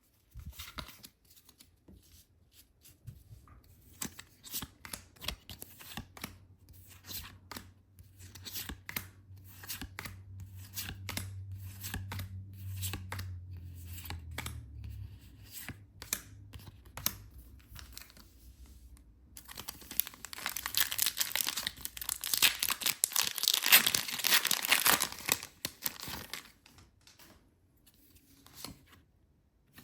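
Packaging being torn open and crinkled by hand, with scattered rustles and clicks, then a longer, louder tearing stretch about two-thirds of the way through.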